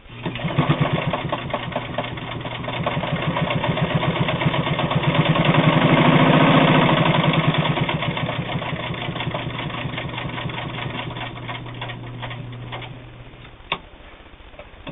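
Bel Air Precision De Luxe sewing machine stitching through two layers of split leather: the motor runs with rapid, even needle strokes, speeding up to a peak about six seconds in and then slowing. It stops shortly before the end, followed by a single sharp click.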